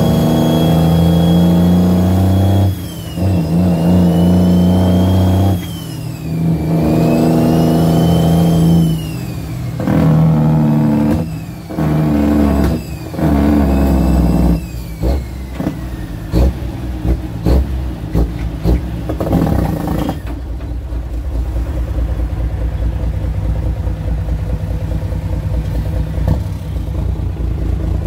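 Cummins L10 diesel in an International truck pulling through the gears of a 13-speed transmission. Engine speed climbs, then drops back with a short dip at each shift, several times over, and a high whine rises and falls with the revs. After about twenty seconds it settles into a steadier, quieter run.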